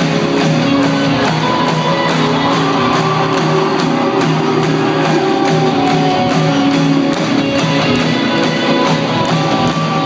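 Live rock band playing amplified music, with electric guitar over a steady beat, recorded from the audience in an arena.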